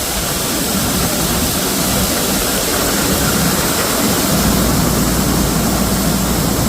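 Tractor-driven 10-inch grain auger running at about 2,200 rpm, unloading dry corn from a bin into a hopper trailer: a loud, steady rushing hum with no pauses.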